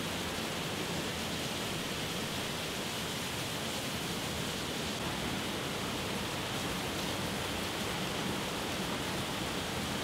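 Steady rushing of a partly frozen waterfall, with water still running under the ice.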